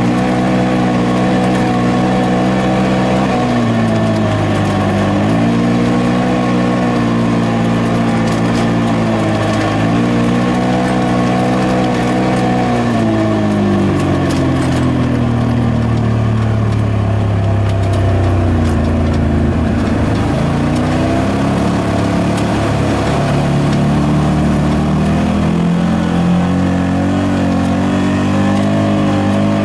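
Side-by-side UTV engine running under way on a sandy dirt trail, its pitch falling and rising several times as the throttle comes off and back on, dipping lowest a little past the middle.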